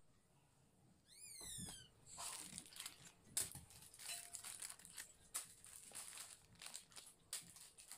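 Plastic snack packets being handled, crinkling and rustling in faint, irregular crackles, with a brief run of high falling chirps about a second in.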